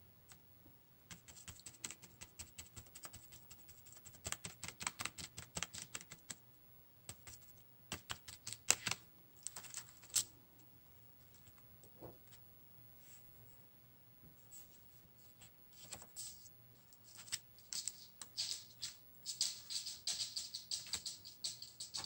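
Thin translucent paper handled by hand on a tabletop: quick light ticks and taps as fingers press and shift the sheet, then a brushing hiss from about three quarters of the way in as the paper is rubbed.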